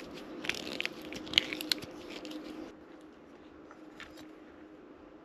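Small metal clicks and scrapes of hand work: bolts, end caps and a screwdriver on a gold aluminium-housed load resistor as it is fastened to a metal bracket. The clicking stops a little under three seconds in, with one more click about four seconds in.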